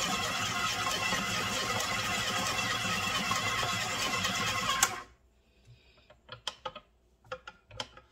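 KitchenAid stand mixer running steadily, its scraper-edge beater churning granulated sugar and molasses into brown sugar. The motor cuts off suddenly about five seconds in, followed by a few light clicks and knocks.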